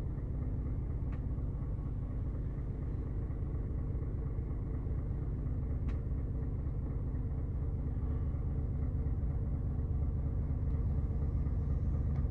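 Scania S 500 truck's diesel engine idling steadily, a low rumble heard from inside the cab, with a faint click about six seconds in.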